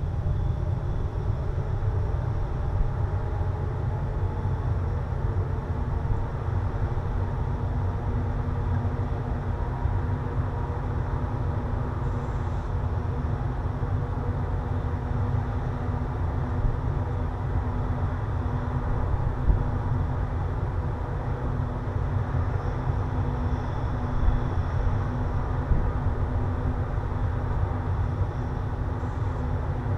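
Steady wind rumble buffeting a small action-camera microphone, with a faint even hum over it.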